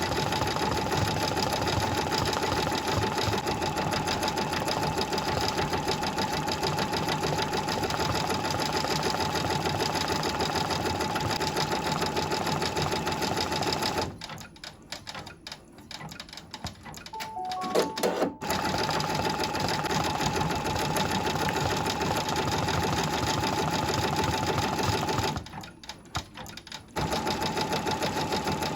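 Brother VR embroidery machine stitching at a fast, steady pace, stopping twice for a few seconds. A few short electronic tones sound during the first stop.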